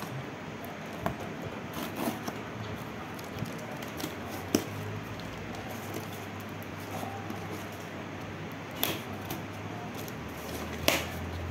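Cardboard parcel being handled and pried open by hand, a pencil pushed under its tape: scattered scrapes, rustles and crinkles of cardboard, with a few sharper clicks and snaps.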